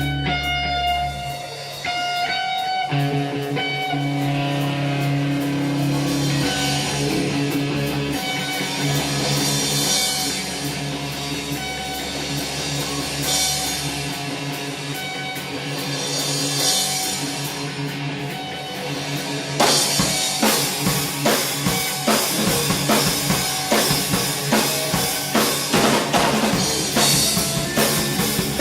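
Live rock band playing: held guitar chords with swelling cymbals, then the full drum kit comes in about twenty seconds in with a steady driving beat.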